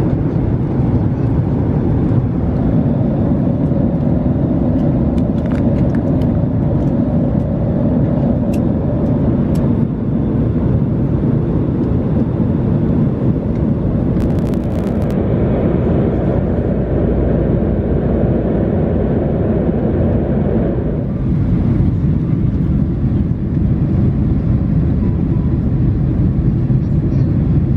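Steady rumble of airliner cabin noise inside a Boeing 767-300ER, engines and airflow heard from an economy seat. Its tone changes slightly about three-quarters of the way through.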